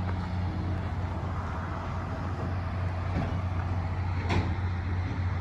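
An engine running steadily with a low, even hum, with a couple of faint knocks partway through.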